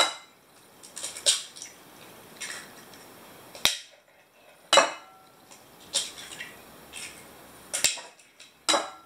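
Eggs being cracked one after another on the rim of a mixing bowl: a run of sharp taps and clinks, about one every second.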